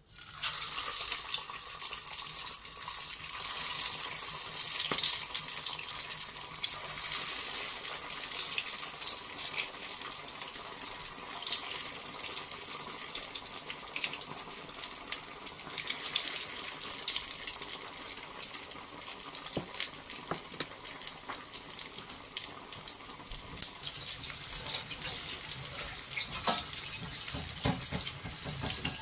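Lentil tikka kababs frying in hot oil: a loud sizzle with dense crackling starts suddenly as they go into the oil, then slowly eases. A few sharp clicks of a fork against the pan near the end.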